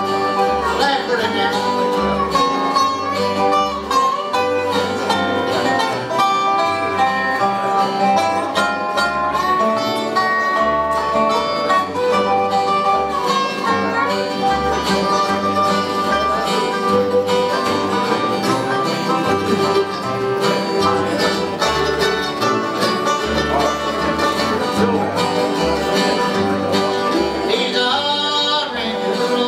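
Bluegrass band playing live: fiddle, banjo, acoustic guitars and upright bass together, with the bass keeping a steady beat.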